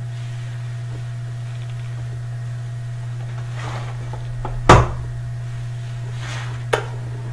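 Steady low hum, with one sharp knock about two-thirds of the way through and a lighter click near the end.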